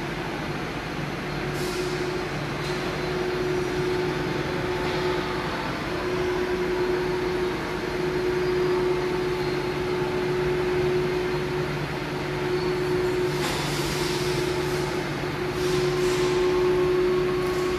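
Steady machinery running in a CNC woodworking factory: an even mechanical drone with a constant mid-pitched whine, broken by a few short hisses, several of them near the end.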